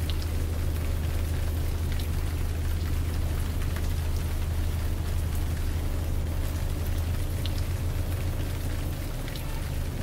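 Rain falling on the narrowboat and the lift's steel caisson, with a few separate drops ticking, over a steady low hum.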